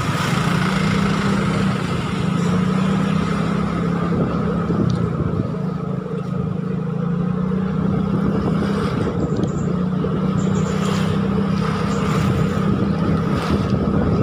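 Motorcycle engine running steadily while riding at low speed through town traffic, with wind and road noise.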